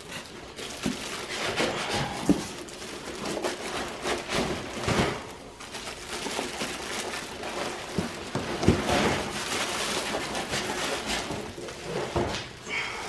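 Clear plastic wrapping crinkling and rustling as a heavy bench grinder is handled and lifted out of its cardboard box, with a few dull knocks among the crackling.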